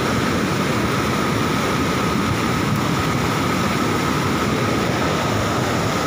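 Swollen, muddy floodwater rushing in a river in spate, a loud steady noise of water with a faint steady high tone beneath it.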